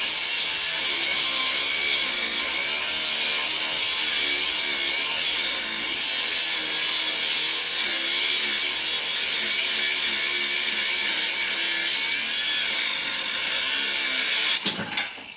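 Electric power tool running under load, cutting through metal, its motor speed wavering as it bites. It is switched off near the end with a click and quickly runs down.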